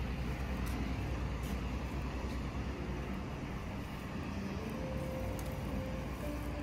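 A steady, low rumble of background noise, with a faint steady hum joining it about five seconds in.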